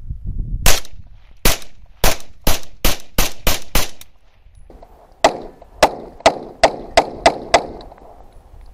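PPS-43 submachine gun in 7.62×25 Tokarev firing two quick strings of single shots, about nine in the first four seconds and seven more from about five seconds in, each string speeding up as it goes.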